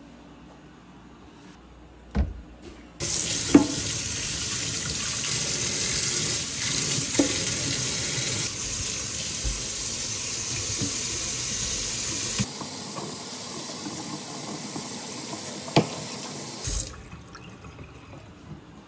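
Kitchen faucet running into a stainless steel sink: the water comes on suddenly about three seconds in and shuts off near the end, with a few sharp knocks along the way.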